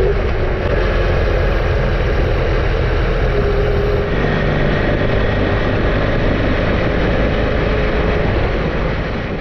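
BMW F800GS parallel-twin engine running while the motorcycle is ridden, with wind noise rushing over the microphone. The engine note changes abruptly about four seconds in, and the sound starts to fade near the end.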